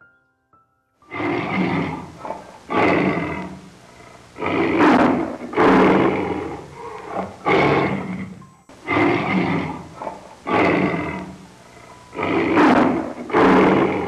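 Tiger roaring and growling, about nine rough, loud calls of about a second each in quick succession.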